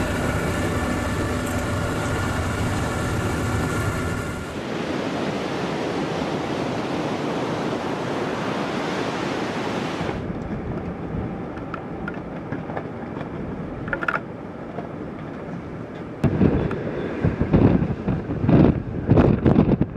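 A ship's machinery humming steadily for the first few seconds, then the even rush of typhoon wind and rain. From about four seconds before the end, strong gusts buffet the microphone in loud, irregular blasts.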